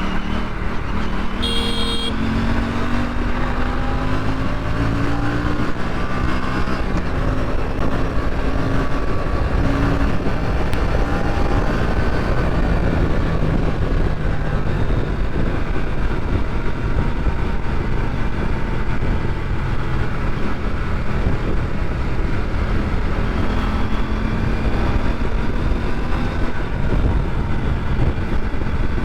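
Aprilia RS 457's parallel-twin engine running under way with heavy wind and road noise, its pitch rising as it accelerates through the first few seconds and again about ten seconds in. A vehicle horn toots briefly about two seconds in.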